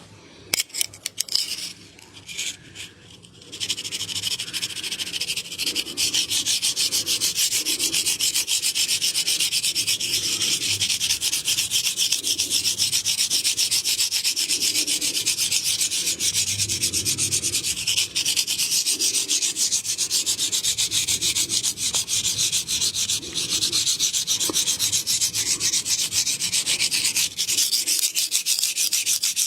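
A few sharp clicks, then from about four seconds in a fast, steady, scratchy rubbing of hands working vigorously over skin in a massage.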